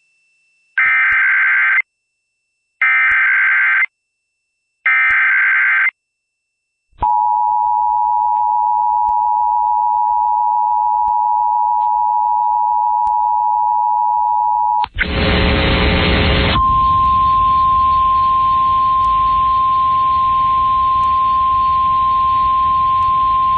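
Emergency Alert System tornado warning tones over FM radio: three one-second screeches of SAME header data, then the two-tone attention signal held steady for about eight seconds. After a brief rush of static comes the single steady 1050 Hz NOAA Weather Radio alert tone with hiss behind it, the lead-in to the spoken warning.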